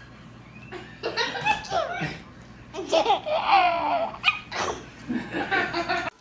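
Laughter in two stretches, a short burst about a second in and a longer fit from about three seconds on, breaking off just before the end.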